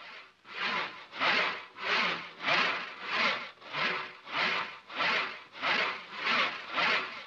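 Large two-handled saw cutting through a wooden box, rasping back and forth in an even rhythm of about one and a half strokes a second.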